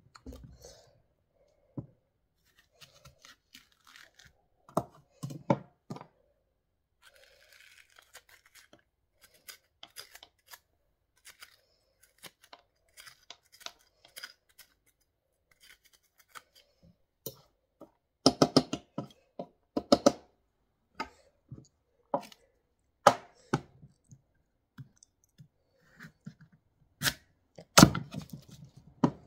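Knife and spoon working a raw squash on a cutting board: soft scraping as the seeds are scooped out, and sharp, uneven knocks as the knife cuts through the squash onto the board. The loudest knocks come in clusters about two-thirds of the way through and near the end.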